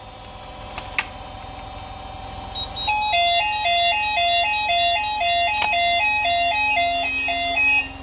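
Manual call point of a Hochiki ESP addressable fire alarm system triggered with a test key, giving a click about a second in. About three seconds in, the alarm sounders start a two-tone fire alarm tone that alternates between a high and a low note about twice a second, and it cuts off just before the end.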